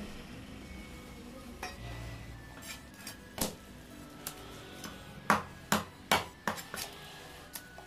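Large knife blade scraping scales off a katla fish on a wooden chopping block: a scatter of short, sharp scraping strokes, with a quick run of four louder ones in the second half.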